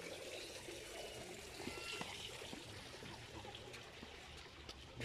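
Fountain water pouring from a spout and splashing and trickling into a shallow stone basin, easing a little near the end.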